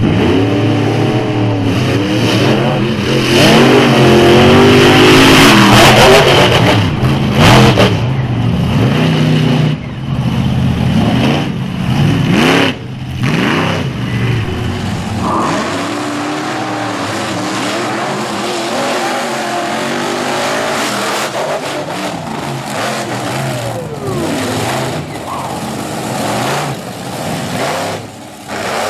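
Monster truck engines racing flat out, revving hard with the pitch repeatedly rising and falling. They are loudest during the first several seconds.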